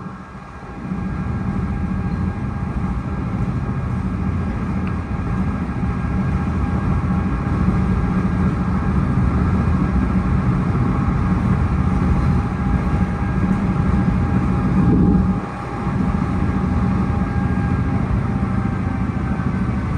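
A PATCO Speedline railcar running at speed, heard from inside the car: a steady rumble of wheels on rail with a faint, steady whine above it. The noise dips briefly just after the start and again about three-quarters of the way through.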